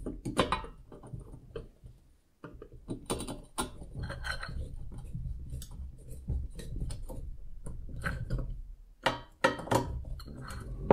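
Small screwdriver tightening a screw into the black plastic body frame of a DeLorean model: irregular clicks and scrapes of metal on the screw and plastic, with handling knocks against the frame and a few sharper clicks near the end.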